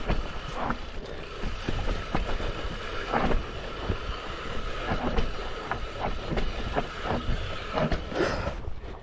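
Mountain bike rattling down a rough trail: a steady rush of rolling noise with many irregular sharp knocks and clatters from the bike over bumps.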